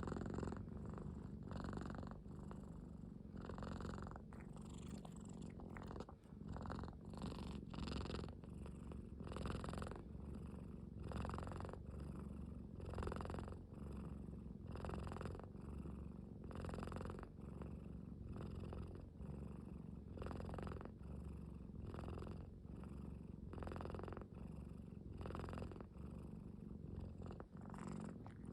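Domestic cat purring steadily, a low rumbling purr that swells and fades with each breath about once a second, much like snoring.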